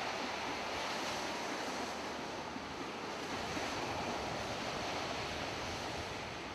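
A steady rushing noise with no distinct events or pitched tones, street ambience of the kind wind on the microphone or distant traffic makes.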